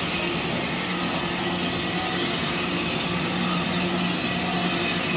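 Automatic dish-head polishing machine running: its electric motor and belt-driven polishing head hum steadily over an even hiss as the head works the inside of a steel dished head.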